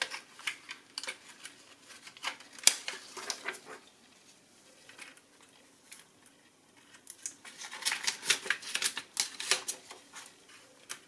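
Light clicking and crinkling of thin plastic sheet, printed dial overlays and transparency film, being worked under the needles of a plastic car instrument cluster by gloved fingers. There is a busy spell in the first few seconds, a quieter stretch around the middle, then denser clicking near the end.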